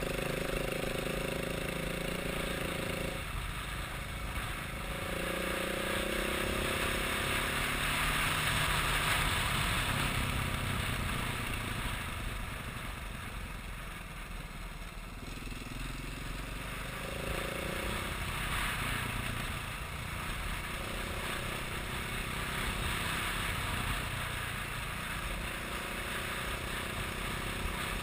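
Motor vehicle engine running, its pitch climbing and then dropping back several times, over a steady rushing road or wind noise.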